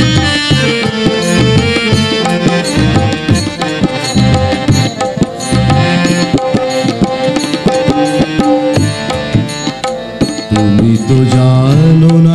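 Tabla playing a fast rhythmic interlude over steady harmonium tones. The deep bayan strokes bend in pitch. Near the end the drumming thins and longer held notes take over.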